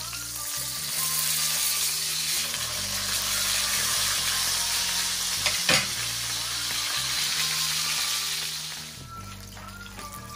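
A whole fish sizzling as it fries in hot oil in a skillet: a dense, steady spattering hiss that grows louder after the first second and eases off near the end. A single sharp click comes about halfway through.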